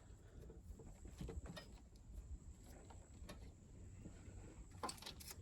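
Near silence: a faint low rumble with a few faint, scattered clicks.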